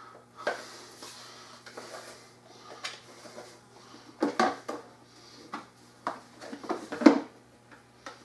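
Hard plastic knocks and clicks as a white plastic tank is handled and pressed into place on an electric pressure washer's frame. There is a cluster of knocks about halfway through and the sharpest knock about seven seconds in.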